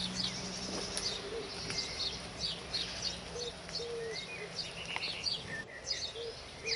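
Wild birds chirping over and over in short high calls, with a few short, low cooing notes among them.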